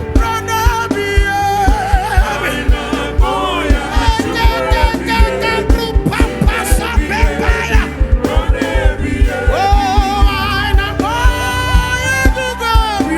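Live gospel praise music: voices singing with long held notes over a band with a steady, driving kick-drum beat.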